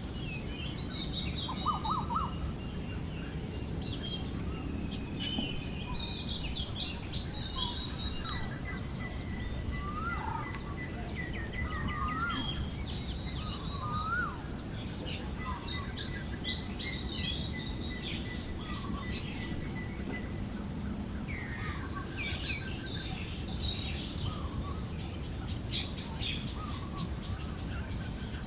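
Forest ambience: many small birds chirping and calling in short, scattered phrases, over a steady high insect trill and a low rush of breeze.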